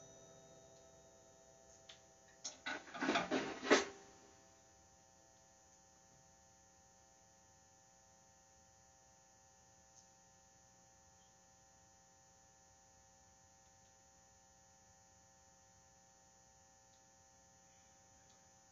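Faint, steady electrical mains hum made of several fixed tones, broken once, about two and a half seconds in, by a brief cluster of sharp clicks and knocks lasting just over a second.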